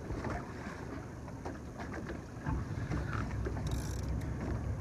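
Steady low rumble aboard a fishing boat, with wind on the microphone, faint scattered clicks and a brief hiss about three and a half seconds in.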